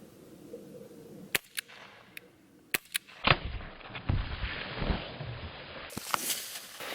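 Pellet gun shots: five sharp cracks in the first three seconds, some in quick pairs. These are followed by a louder stretch of rough noise with several dull thumps.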